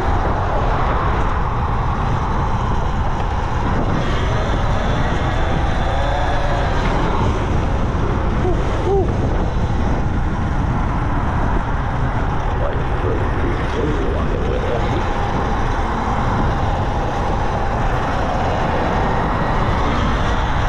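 Steady wind rush and road noise on the microphone while riding a Talaria Sting R electric dirt bike, with no breaks or sudden events.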